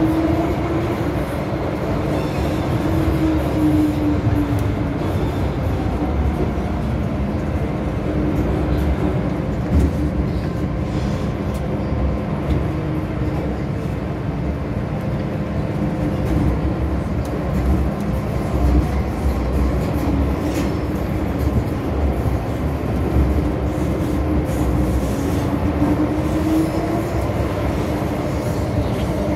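Inside a Hong Kong MTR M-Train car on the move: a steady rumble of wheels on rail with a faint motor tone that rises and falls slightly in pitch a few times.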